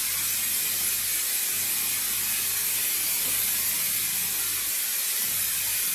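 Aerosol can of colourless water-repellent impregnation spraying onto umbrella fabric in one long, steady hiss.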